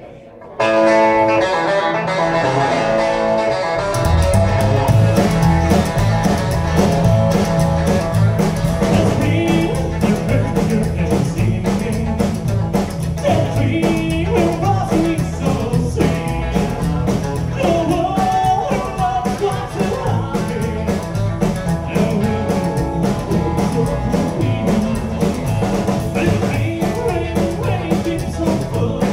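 Live rock'n'roll band playing: a guitar opens alone for a few seconds, then about four seconds in the upright double bass, drums and electric guitar come in, with a man singing over the band.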